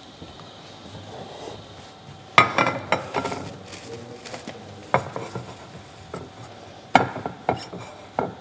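Kitchen utensils and dishes clinking and knocking on a counter: a series of sharp clatters, the first a little over two seconds in, then more about every two seconds, each with lighter clinks after it.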